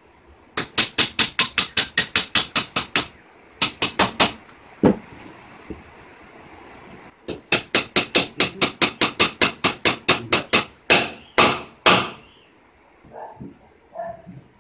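Hammer driving nails into a plywood bed frame: runs of quick, even strikes, about four a second, broken by a pause midway, then three heavier, slower blows near the end and a few faint knocks.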